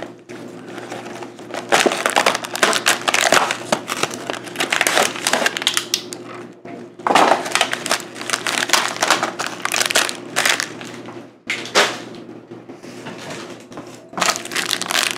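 Cardboard snack box being opened and its clear plastic tray of wrapped biscuits pulled out and handled: a dense run of crinkling and crackling that stops briefly twice.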